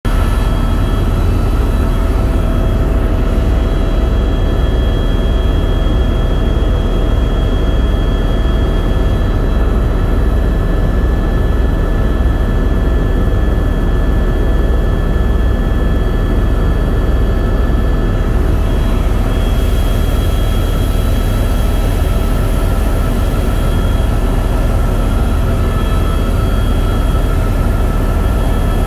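Tour helicopter's engine and rotor noise heard from inside the cabin: a loud, steady low rumble with a constant whine over it.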